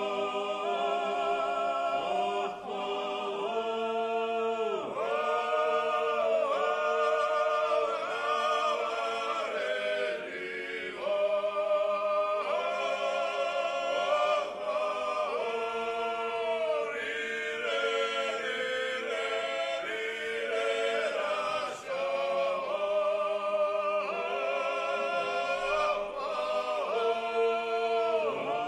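Background music of a choir singing, with the voices moving over a long held low note.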